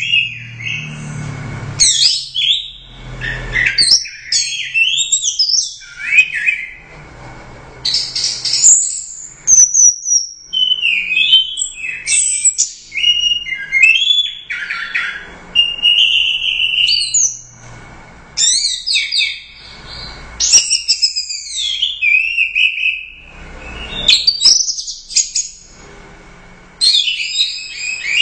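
Orange-headed thrush (anis merah) singing loudly: quick, varied phrases of gliding whistles and chirps, broken by short pauses.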